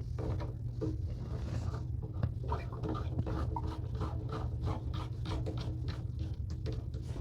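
Faint irregular scraping and light clicking of hand-handling at the sink over a steady low hum, with the tap shut off.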